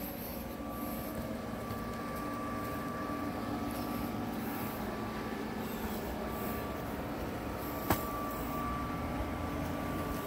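Steady machine hum with a constant low drone and a thin held higher tone, and a single sharp click about eight seconds in.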